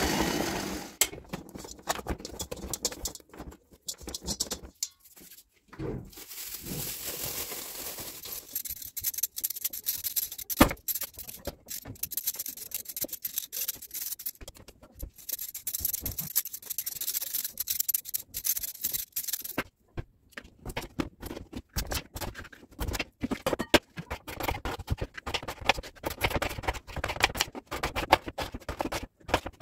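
A machine kneading bread dough runs briefly and stops about a second in. Then a vegetable peeler scrapes the skin off raw potatoes in quick strokes, and in the last third a knife cuts the peeled potatoes into chunks on a cutting board with rapid short knocks.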